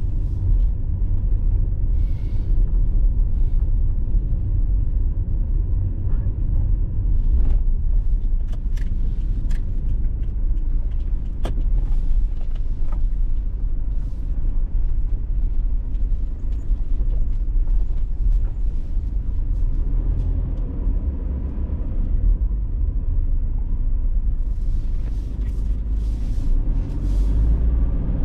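Car driving along a road: a steady low rumble of tyres and engine, with a few short clicks in the middle.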